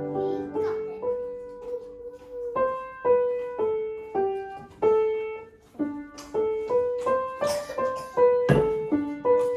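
A child playing a slow, simple melody on the piano: single notes struck one after another, mostly repeating around the same pitch with occasional steps higher and lower, each note ringing and fading.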